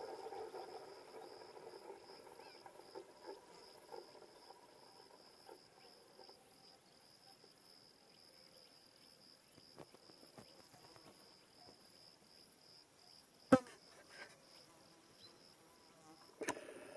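A cricket chirping steadily in a high, evenly pulsing trill, with a faint lower insect buzz fading out near the start. A single sharp click, the loudest sound, cuts in about two-thirds of the way through, and a smaller one comes near the end.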